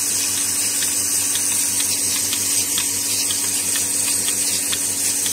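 Portable milking machine's electric dry vane vacuum pump running steadily: a constant hum under a loud, even high hiss as milk and air are drawn through the hoses into the bucket.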